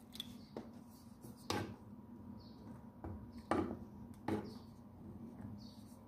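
Wooden spoon stirring oat porridge and milk in a small metal saucepan, knocking lightly against the pan's side and bottom about five or six times at uneven intervals.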